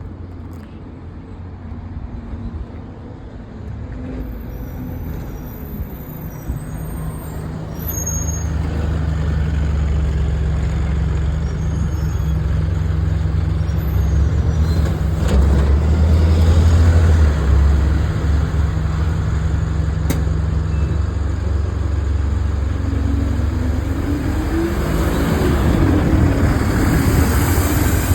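Bus engine running close by, its low rumble growing louder about eight seconds in.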